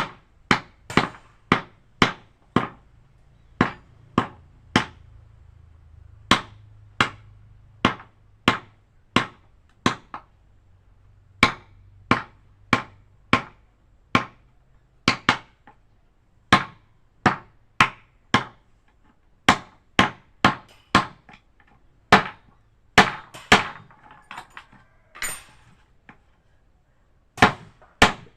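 Hammer blows struck over and over, sharp separate knocks coming in uneven runs of about one or two a second, with a couple of short pauses.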